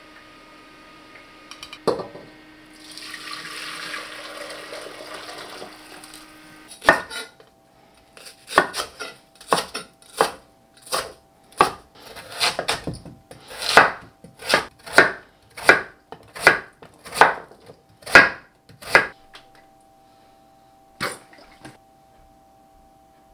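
Chef's knife slicing through a thick round of Korean radish onto a camphor-wood cutting board: a steady run of sharp knocks, about one and a half a second for some twelve seconds, with one more a little later. Before it, a few seconds of broth splashing and pouring as boiled beef brisket is lifted out of the pot.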